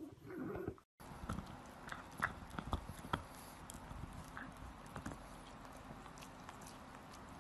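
Pug gnawing a hard plastic corn-cob chew toy: irregular clicks and taps of teeth on the plastic, coming thick at first and then thinning out.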